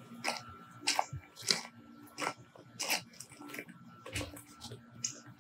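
Footsteps crunching on a gravel yard, irregular steps about every half second to a second, over a faint steady hum.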